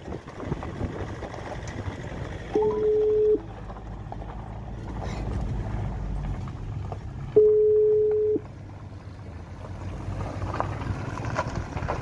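Low engine and road rumble of a vehicle driving along a dirt track, heard from inside the cabin. Twice, a few seconds apart, a steady single-pitch tone sounds for about a second and is the loudest thing heard.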